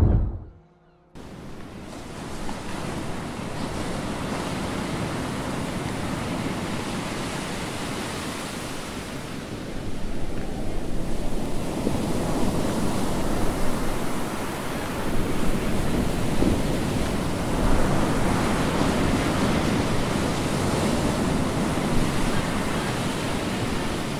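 Sea waves breaking on a shingle beach, with wind buffeting the microphone. The surf starts about a second in after a brief silence, grows louder about ten seconds in, and swells and falls with the breakers.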